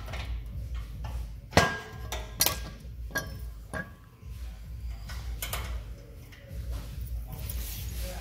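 Steel suspension parts and hand tools clanking and knocking as a lower control arm is handled. The loudest clank comes about one and a half seconds in and rings briefly, followed by several lighter knocks.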